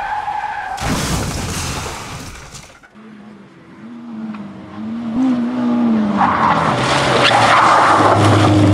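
A crash-like intro sound effect for the first three seconds, then a Peugeot 205 rally car's engine revving, its pitch rising and falling, with loud tyre noise on gravel building over the last few seconds as the car slides.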